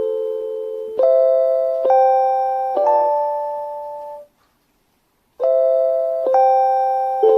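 JR Hokkaido station guide chime for blind passengers, looping: bell-like electronic notes struck about a second apart, each fading away. The phrase stops for about a second near the middle, then starts over.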